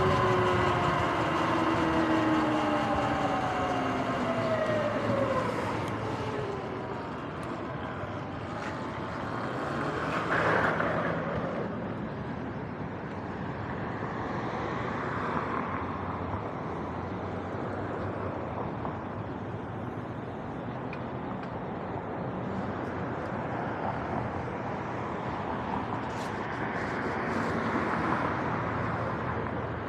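Sur-Ron X electric dirt bike's motor whine, several pitches falling together over the first five or six seconds as the bike slows to a stop. After that, steady road traffic noise, swelling about ten seconds in and again near the end.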